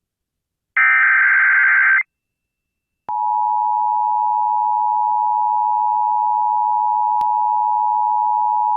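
Emergency Alert System broadcast on FM radio: a buzzy burst of SAME digital header data about a second long, then after a second's pause the steady two-tone EAS attention signal starts and holds.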